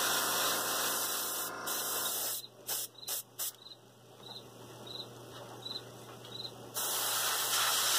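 Gravity-feed airbrush hissing with compressed air as it sprays thin paint onto a model figure. The steady hiss stops about two seconds in, gives a few short puffs, and starts again near the end. A faint steady low hum runs underneath.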